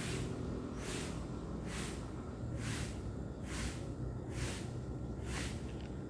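Rhythmic swishes of a broom sweeping a paved path, one stroke about every second, over a steady low rumble.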